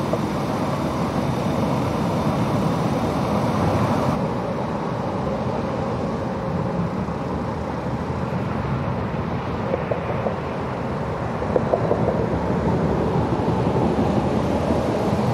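Steady vehicle and traffic noise, a continuous engine rumble, with a few faint clicks near the end.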